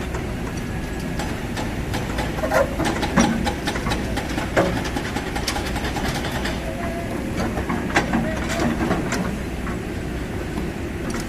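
Kobelco SK200 hydraulic excavator at work: a steady low engine rumble with irregular metallic clanks and knocks, several a second, the loudest a few seconds in and again near the middle.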